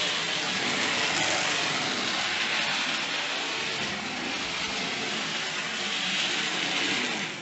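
Two Hornby OO-gauge model tank locomotives running round the track together, their small electric motors whirring and wheels rattling over the rails in a steady noise.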